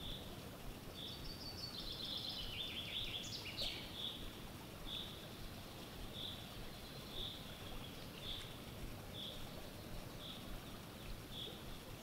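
Songbirds singing in spring woodland: one bird repeats a short high note about once a second throughout, and another sings a rapid trill that steps down in pitch, starting about a second and a half in and ending just before four seconds.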